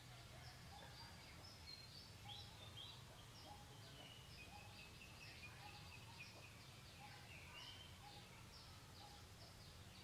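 Faint birdsong in the forest: many quick, high, downward chirps overlapping, with a short lower note repeated about twice a second, over a steady low hum.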